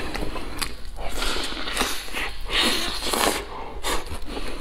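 Close-miked biting and chewing of a large spicy roast leg of meat: wet tearing bites and smacking chews in irregular bursts, the longest a little past halfway.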